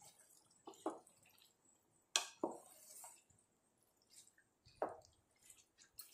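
A spatula scraping and knocking against a nonstick pot while turning moist rice into chicken masala: a few separate soft knocks and squishy scrapes, the loudest about two seconds in.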